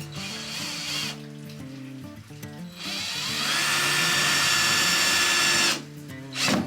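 Power drill spinning up with a rising whine, running steadily for about three seconds and stopping abruptly, with a shorter burst just before the end; background music underneath.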